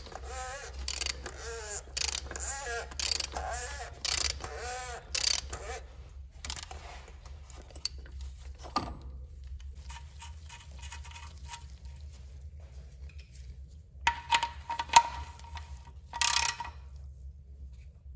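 A ratchet wrench clicking in short runs as the oil drain plug in the pan is screwed in, with the loudest clicks between about 14 and 17 seconds. Before that, for the first six seconds, a rhythmic run of pitched squeaks and clicks.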